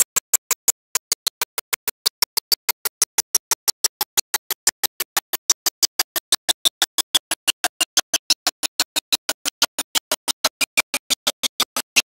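Audio glitch: short, scratchy chirps about five times a second with dead silence between them, a faint tone inside them slowly falling in pitch. The soundtrack is dropping out and stuttering, a playback or transfer fault of the old videotape, not the pow wow itself.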